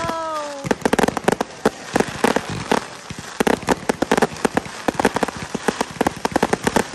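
Aerial fireworks crackling and popping in rapid, irregular bursts as shells break into crackling stars, with a short tone that falls in pitch right at the start.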